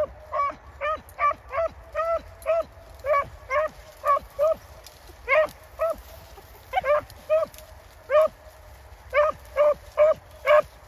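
Hunting dogs barking over and over in short, sharp, same-pitched barks, about two to three a second with brief pauses: hounds giving voice as they run a rabbit through the brush.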